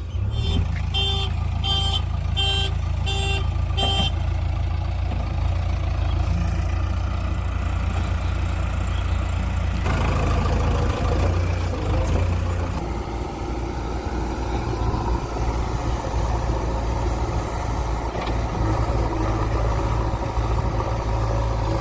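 Backhoe loader's diesel engine running steadily, with a reversing alarm beeping about twice a second for the first four seconds. About ten seconds in, the engine sound grows rougher and busier, as under working load.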